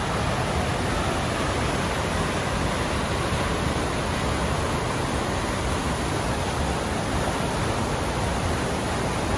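Waterfall on the McKenzie River pouring steadily, a loud, even rush of falling water.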